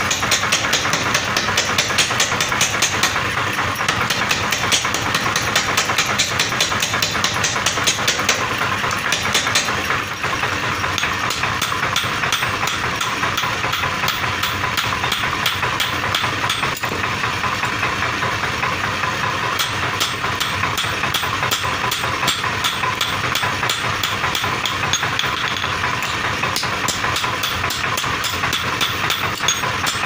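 Small power forging hammer running steadily, its ram knocking in a rapid, even rhythm as it forges a red-hot axe head. Later, hand-hammer blows on the axe head on an anvil mix in over the machine's constant running.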